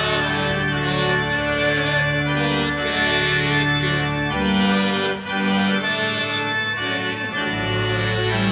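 Organ playing slow, held chords, the bass note shifting every second or two.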